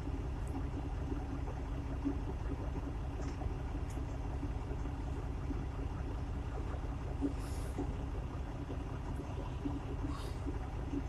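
Steady low rumble and hum inside a truck cab, the engine idling, with a few faint clicks.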